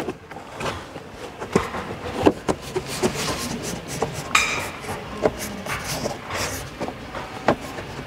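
Irregular taps and knocks of a rubber door-opening weatherstrip being pressed back onto the car's door-frame flange by hand, with a short scrape about four seconds in.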